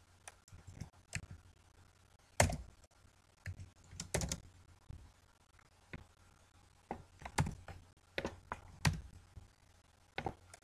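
Computer keyboard typing: scattered single keystrokes and short runs of clicks with pauses between them. One louder keystroke comes a little over two seconds in.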